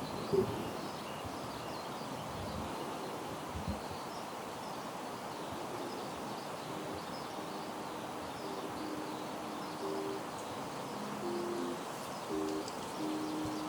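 Quiet outdoor ambience with faint, scattered small-bird chirps. About halfway in, soft background music enters with held low notes, two pitches sounding together.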